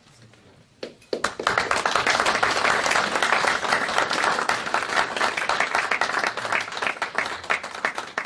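Audience applauding: a dense patter of clapping that starts about a second in and tails off at the end.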